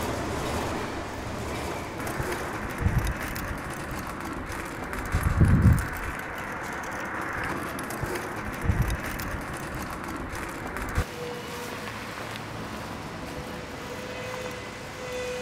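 A metal shopping cart rolling and rattling over pavement amid street noise, with a few low thumps of wind on the microphone. About eleven seconds in, this gives way to quieter street sound with a faint steady tone.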